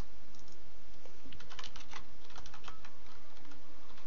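Computer keyboard keys being typed: a single keystroke at the start, then a quick run of clattering keystrokes from about a second and a half in until nearly three seconds.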